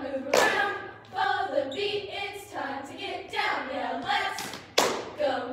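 A squad of girls chanting a cheer together in unison, with two sharp hits, one just after the start and one near the end.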